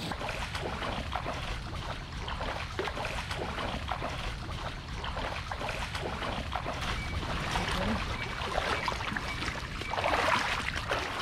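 Rubber boots sloshing and splashing through shallow muddy floodwater, step after step, louder about ten seconds in as they pass close by.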